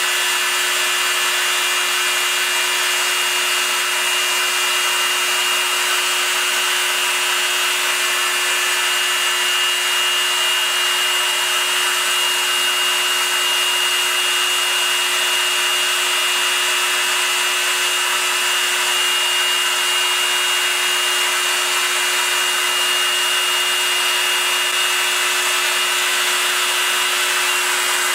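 Proxxon MF 70 mini milling machine under CNC control, its spindle motor running steadily at high speed while the end mill cuts into aluminium plate: a steady hum and high whine over a hiss. One high tone in it stops shortly before the end.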